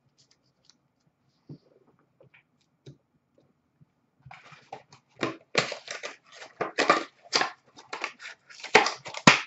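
Packaging crinkling and tearing in rapid, irregular crackles, starting about four seconds in and growing loud, as a sealed box of hockey cards is opened. A few faint clicks of cards being handled come before.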